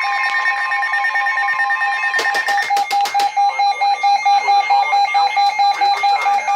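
Emergency alert tones for a flash flood warning: a steady alert tone for about two and a half seconds, then a rapidly pulsing alert tone at about five beeps a second, with a few sharp clicks where the two meet.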